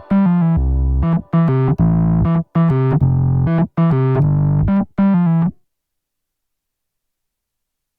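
Background music on a piano-like keyboard, chords struck in a steady rhythm, stopping abruptly about five and a half seconds in, followed by dead silence.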